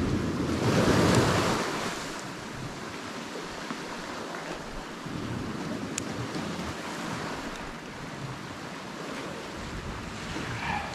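Sea water washing and lapping with wind buffeting the microphone, a louder surge of water in the first two seconds, then a steady wash.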